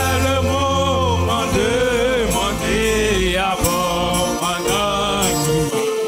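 Gospel hymn music: a steady low bass under a lead melody that bends and wavers in pitch.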